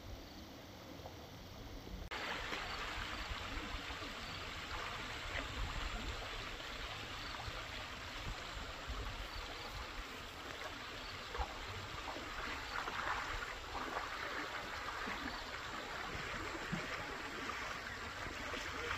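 Stream water flowing steadily; the sound comes in abruptly about two seconds in, after a quieter start.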